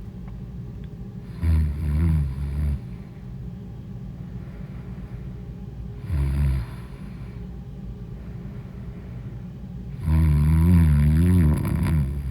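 A woman snoring loudly in her sleep: three snores, the first about a second and a half in, a short one in the middle, and a longer one of about two seconds near the end. A steady low hum runs under and between them.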